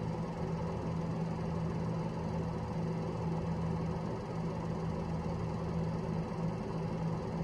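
An engine idling steadily, a constant hum with an even pitch.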